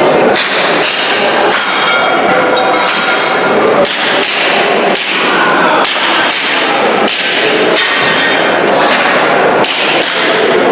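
Airsoft pistol firing a string of shots, heard as repeated sharp cracks and knocks at an irregular pace.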